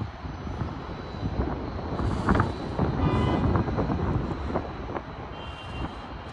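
Low city rumble of distant traffic heard from high up, with wind buffeting the microphone; it swells for a couple of seconds in the middle.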